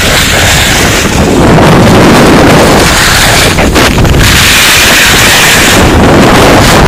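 Loud wind buffeting on the microphone of a camera carried by a skier moving downhill, a steady dense rush with no pauses.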